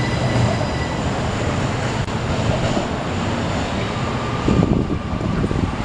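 A heavy vehicle passing close by: a steady low rumble and rushing noise, with a faint high whine in the first second.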